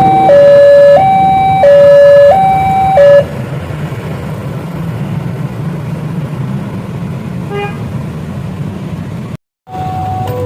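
Electronic level-crossing warning alarm sounding two alternating tones, low and high, each held about two-thirds of a second; it stops abruptly about three seconds in, leaving a steady low rumble. The sound cuts out briefly near the end, and the alternating tones start again right after.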